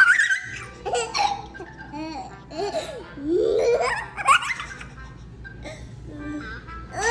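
Baby laughing in repeated bursts of belly laughs and giggles, with a long rising squeal of laughter about three to four seconds in.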